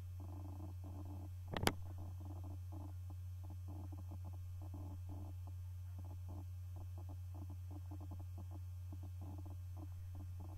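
Steady low electrical hum, with one sharp click about a second and a half in.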